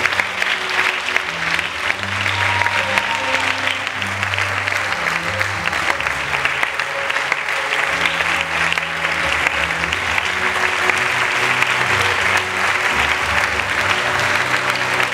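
Sustained applause from a large audience, with music and its shifting bass notes underneath.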